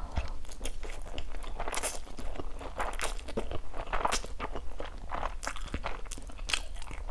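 Close-up eating sounds of spicy instant ramen noodles being slurped and chewed: a steady run of short wet smacks, clicks and slurps.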